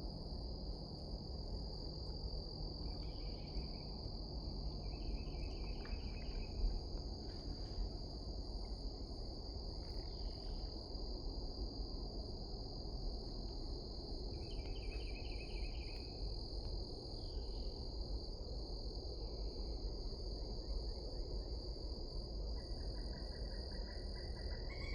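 Steady high-pitched insect chorus, like crickets, with a bird giving a few short rapid trills of repeated notes every several seconds, over a low background rumble.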